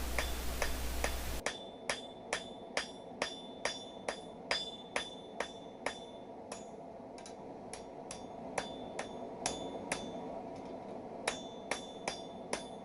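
Blacksmith's hammer striking hot steel on an anvil in a steady rhythm of about two blows a second, each blow ringing, with a short pause near the end before the blows resume.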